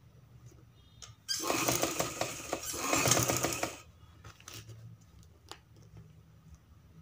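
Sewing machine stitching a short run through cotton fabric: about two and a half seconds of rapid, even needle strokes that start about a second in and stop abruptly. Faint clicks from fabric being handled and positioned come before and after.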